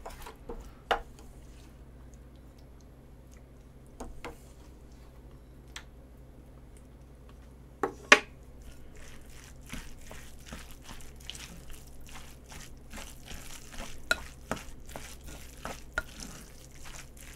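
Utensils knocking and scraping against a pot and bowl as a brothy stew is stirred and dished up, with some liquid sounds. There are a few separate knocks at first, a loud double clack about eight seconds in, then a steady run of small clicks and scrapes.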